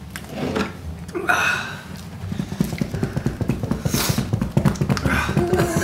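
Pained, wordless vocal sounds from people suffering the burn of extremely spicy noodles: a few short breaths or sniffs early on, then a long low creaky groan through the second half, with a sharp breathy exhale about four seconds in.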